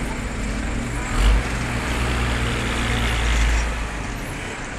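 Street traffic with a bus engine running close by as it passes, loudest from about one to three and a half seconds in. There is a brief low thump about a second in.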